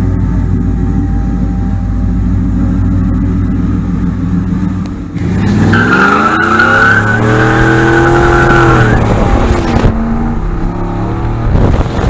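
Pickup truck engine running at low revs, then about five seconds in the throttle opens hard: the revs climb steeply and the tires squeal for about three seconds as the truck accelerates away. The revs then drop and wind and road noise take over.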